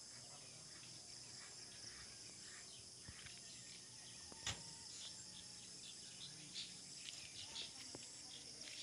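Faint, steady high drone of crickets or other insects, with scattered short bird chirps over it. A single sharp click about halfway through is the loudest moment.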